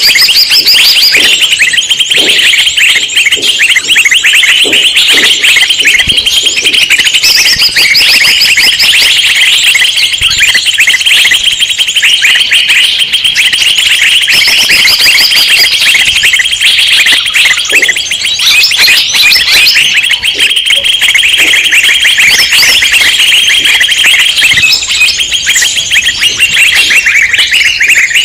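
A loud, dense chorus of many small birds chirping and trilling over one another without pause, a 'noisy birds' lure recording used to draw in wild birds.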